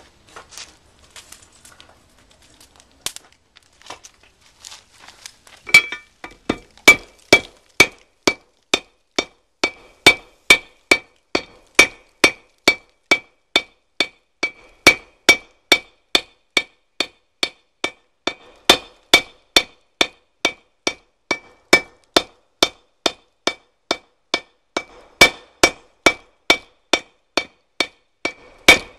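Hand hammer striking a red-hot billet of 5160 and 1095 steel on an anvil, about two blows a second with a bright ring on each, starting about six seconds in after a few light clinks of handling. The layered billet is being forge-welded for damascus steel.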